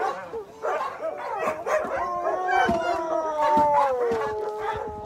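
Husky sled dogs yipping and barking, then about two seconds in a long howl that slides slowly downward in pitch and carries on.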